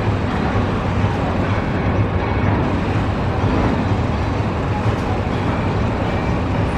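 Jet airliner engines running: a steady, loud rumble with a broad roar above it.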